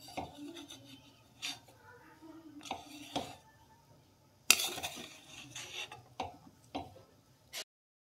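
Utensils knocking and clattering against a steel cooking pot in a string of short clinks, with one louder, longer clatter about halfway through; the sound cuts off suddenly near the end.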